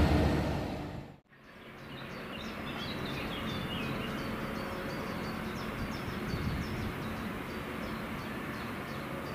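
A passing train's rumble fading out in the first second, cut off abruptly. Then a steady outdoor background with small birds chirping over and over, several short calls a second.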